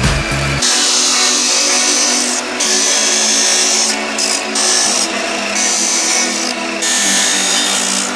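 Abrasive chop saw's cut-off wheel grinding through a rusty steel saw blade. The high grinding hiss breaks off briefly several times as the wheel is lifted between cuts.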